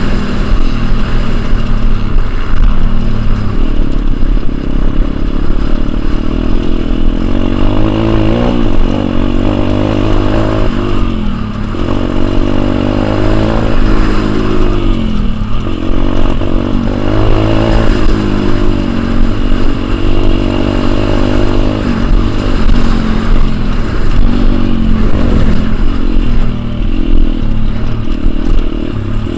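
Pit bike engine heard close up while riding, revving up and down with the throttle, its pitch rising and falling again and again.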